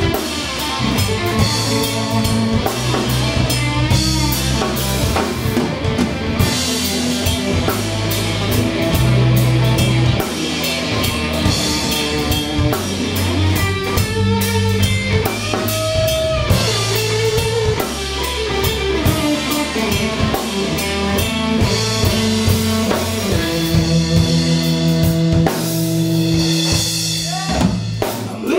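Live blues trio of electric guitar, electric bass and drum kit playing a slow twelve-bar blues instrumental passage, the electric guitar carrying the lead over bass and drums.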